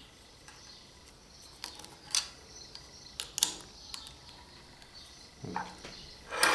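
Small plastic and metal parts clicking and tapping as a replacement piece is pressed into the opened plastic head of a tape-binder tying tool, with scattered light clicks and a louder clatter near the end.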